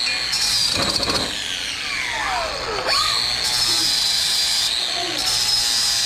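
Angle grinder cutting through a steel bar held in a vise: a high motor whine with a harsh hiss whenever the disc bites into the metal. About a second and a half in, the whine drops steeply in pitch as the disc bogs down under load, then climbs back up sharply about three seconds in.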